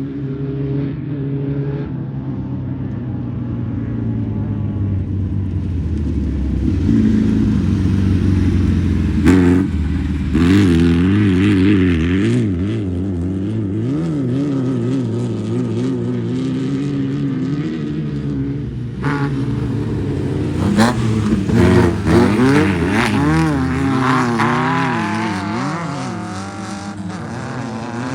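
Off-road race vehicles' engines revving hard as they pass, the pitch rising and falling quickly with the throttle, with a few sharp knocks. It grows louder near the middle and again in the latter part.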